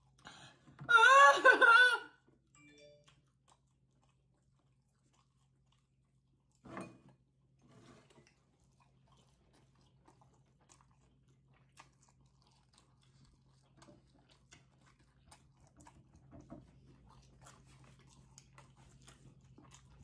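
People chewing spicy sauced meatballs, faint wet mouth sounds and light fork clicks. There is a loud, drawn-out moan about a second in and a single short thump around seven seconds.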